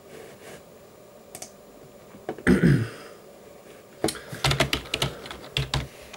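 Computer keyboard and mouse clicking in scattered taps, with a quick cluster of clicks in the second half, over a faint steady whoosh of the CPU cooler fan running under full load. About two and a half seconds in there is one brief, loud low sound that falls in pitch.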